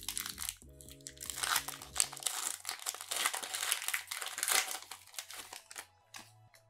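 Foil wrapper of a Pokémon TCG Shining Fates booster pack crinkling and crackling as it is opened by hand, dying away near the end. Soft background music plays underneath.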